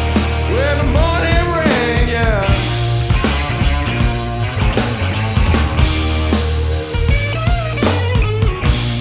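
Rock band playing live with a steady drum-kit beat and a heavy bass line, under a lead melody that bends and slides in pitch, most clearly in the first couple of seconds and again near the end.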